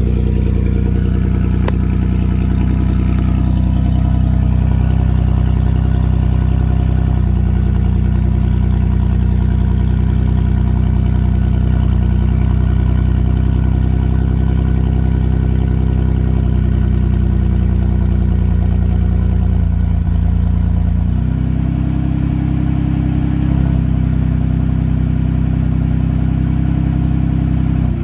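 Ford F-150's 2.7 EcoBoost twin-turbo V6 running with its exhaust split open at the flange ahead of the resonator and muffler, a loud, steady unmuffled drone. The note changes about twenty seconds in and then holds steady again.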